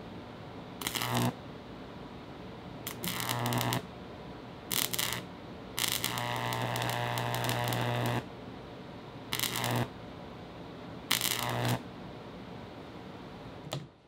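High-voltage arc from a single microwave oven transformer with no resonant capacitors, buzzing with a low hum. It comes in six bursts as the arc is struck and drawn out, the longest lasting about two seconds near the middle.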